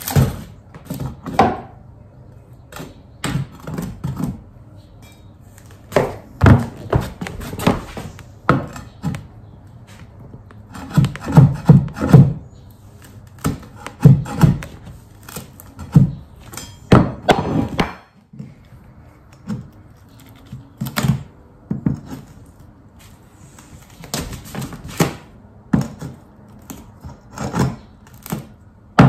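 Irregular wooden thunks and knocks, some in quick clusters, as plywood underlayment and peel-and-stick tiles are pried up off an old wood floor.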